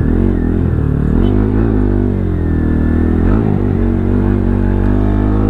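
Motorcycle engine running under the rider while riding in traffic. The engine note dips and rises again a couple of times as the throttle eases off and opens.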